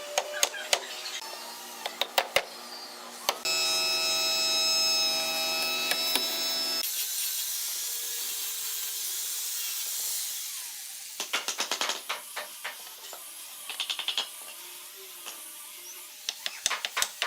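Woodworking sounds on hardwood: scattered light knocks and taps, then a power tool running steadily for about three seconds, then a few seconds of hiss, and near the end runs of quick taps.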